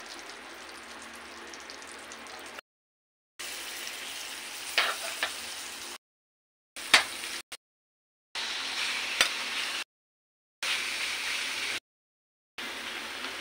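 Food sizzling in hot oil in a metal wok while it is stirred with a metal spatula, heard in several short stretches broken by brief silences. The spatula scrapes and knocks sharply against the pan a few times, loudest about seven seconds in.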